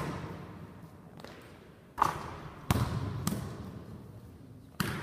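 A basketball bouncing on a hardwood gym floor: about five separate thuds, each dying away with echo in the big hall.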